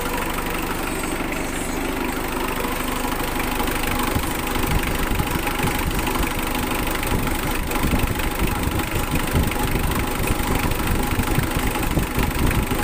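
Mitsubishi 4D56 four-cylinder diesel engine idling steadily while it warms up to operating temperature to bleed air from the cooling system after a water pump replacement.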